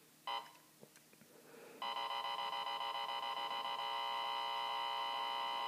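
Cobra XRS 888 radar detector sounding its K-band alert as it picks up the radar gun: one short electronic beep about a third of a second in, then from about two seconds in a continuous alert tone.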